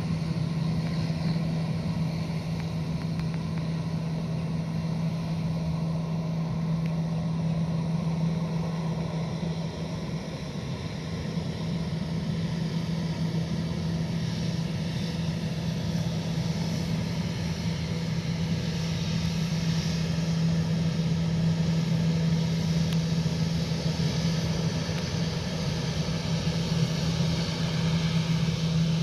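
Airbus A320 jet engines at taxi power: a steady low drone with a high-pitched whine that grows louder over the second half.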